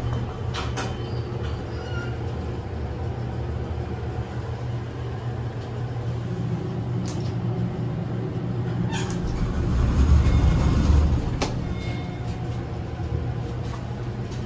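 KONE glass elevator car travelling between floors: a steady low hum of the drive, with a few light clicks, swelling to a louder low rumble about ten seconds in.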